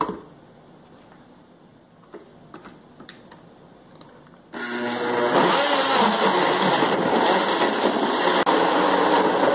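A knock and a few faint clicks, then a Blendtec blender's motor starts suddenly about halfway through and runs loud and steady at high speed, its pitch wavering as it churns chunks of cucumber, celery and lime in a little water.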